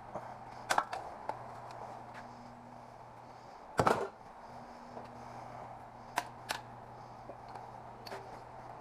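Scattered clicks and knocks of hand tools and metal parts being handled, the loudest a short clatter near the middle, over a steady low hum.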